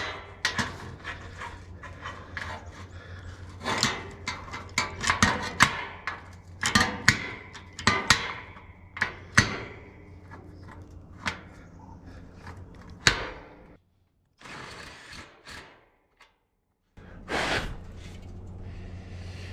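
Irregular clicks, knocks and clatter of clamps and steel pieces being handled and fitted against a hollow bracket, over a steady low hum. The sound drops out for about three seconds near the end.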